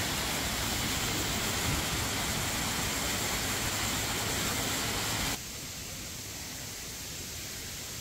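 Waterfall water rushing in a steady loud hiss; about five seconds in it cuts off suddenly to a quieter, thinner rush.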